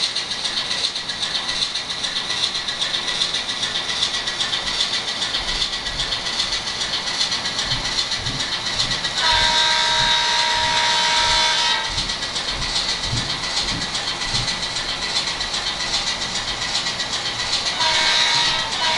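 N-scale model train running, the Atlas ALCO S-2's factory sound decoder playing its diesel sound through a tiny speaker over steady hiss and light clicking from the wheels on the track. The decoder's horn sounds for about two and a half seconds around nine seconds in, and again near the end.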